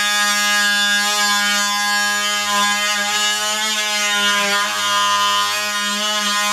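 Oscillating multi-tool buzzing steadily as its blade cuts a wood shim flush with a door jamb, the pitch sagging slightly now and then as the blade bites.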